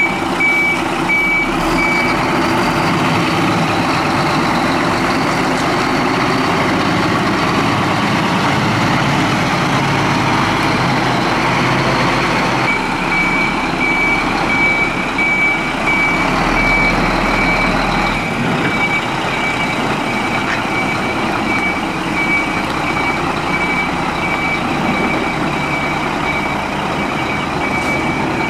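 Scania hook-lift truck's diesel engine running as it manoeuvres, with its reversing alarm giving a steady string of high-pitched beeps. The beeping stops about two seconds in and starts again about halfway through.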